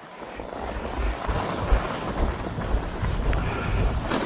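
Wind buffeting the microphone: an uneven low rumble over a steady hiss that grows slightly louder.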